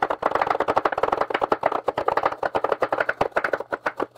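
A chef's knife and a Chinese cleaver rapidly chopping carrots into rounds on a wooden cutting board: a fast, steady run of blade knocks, roughly ten a second.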